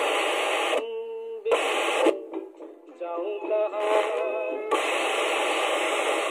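Old Osian multiband radio on the FM band hissing with static as its tuning dial is turned. Between about one and five seconds in it briefly picks up stations, with short snatches of singing and music breaking through the hiss.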